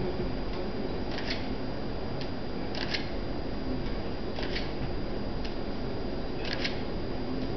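DSLR autofocus drive whirring in short bursts as the lens racks focus, four times about every one and a half to two seconds. A faint steady high whine runs underneath.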